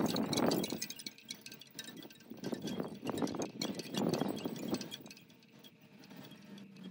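Wind chimes tinkling lightly, with two louder rushes of noise, one at the start and one in the middle, that fade toward the end.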